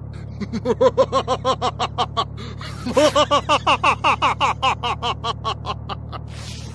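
A cartoon voice laughing in two quick runs of short, rapid syllables, over the steady low hum of a van's engine.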